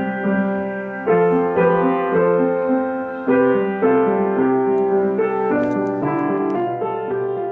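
Upright piano playing a slow, simple melody over sustained chords, with a new note or chord struck about every half second. A few faint clicks come in after about five seconds.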